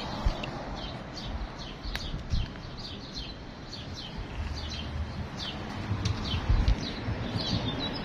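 Songbirds chirping in a quick series of short, high chirps that slide downward, about two or three a second, over a low outdoor rumble.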